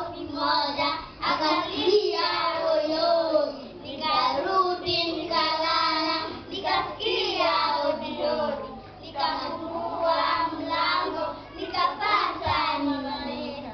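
A group of young children singing together, in phrases with short breaks between them.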